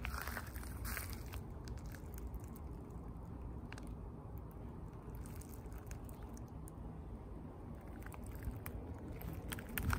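Footsteps crunching lightly on wood-chip mulch, scattered clicks and crackles over a steady low rumble.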